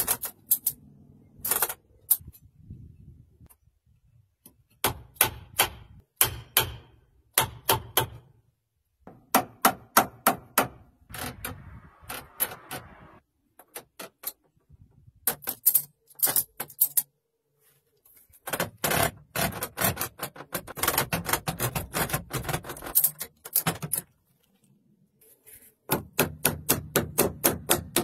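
Woodworking hand tool striking wood in quick runs of sharp taps, several a second, with short pauses between runs. The longest and densest run comes about two-thirds of the way through.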